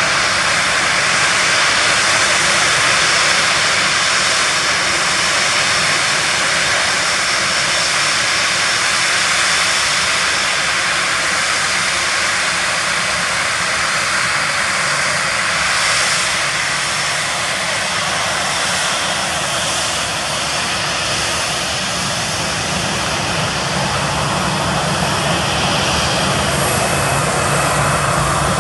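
Boeing 737-800's CFM56-7B turbofan engines running at taxi power: a steady, loud jet whine with high whistling tones. A deeper hum joins in near the end as the airliner turns in.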